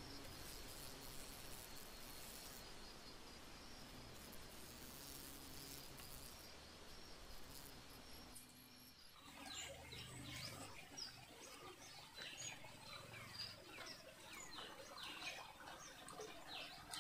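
Faint night ambience with insects trilling steadily in the background; about nine seconds in, after a sudden change, many birds chirping in quick, short calls.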